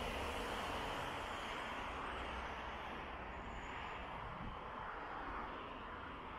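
Street traffic noise from a passing vehicle, a steady rushing that fades slowly away.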